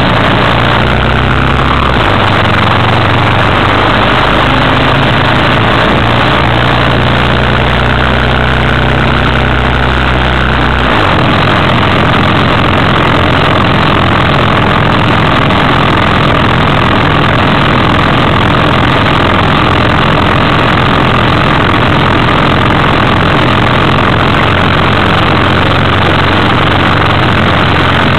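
Motorcycle engine running while riding, under a loud steady rush of wind on the microphone. The low engine note changes about two seconds in and again about eleven seconds in.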